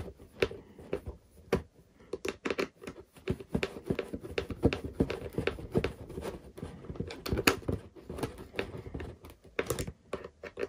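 Screws being tightened into wood with a hand screwdriver: a run of small irregular clicks and creaks as the screws are turned down.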